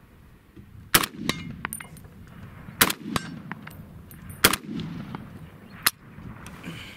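Century Arms C308, a G3-pattern .308 semi-automatic battle rifle, fired four times, the shots about one and a half to two seconds apart. Lighter metallic clinks come between the first shots.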